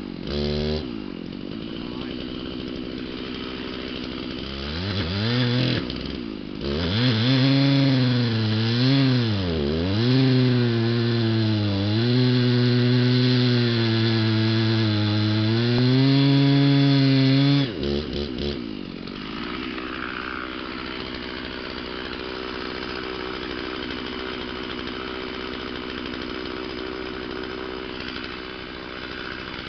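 Stihl chainsaw cutting through a large log: after a brief idle the engine revs up and the chain bites, its pitch dipping and recovering as the saw bogs under load, then holding steady at full throttle through the cut. About two-thirds of the way through the throttle is released and the saw settles to a steady idle.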